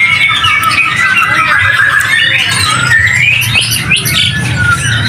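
A dense chorus of caged songbirds, white-rumped shamas among them, with many birds chirping and whistling at once in quick, overlapping phrases. A low steady hum runs underneath.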